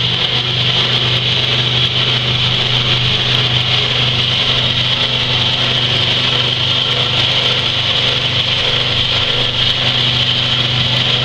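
Electric vibrating sieve machine (vibratory flour sifter) running steadily: a constant low hum under a bright, even hiss, with no change in speed.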